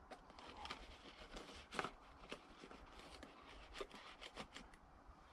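Faint rustling and small clicks from handling a pot cozy being slipped onto a cooking pot, with the sharpest knock about two seconds in.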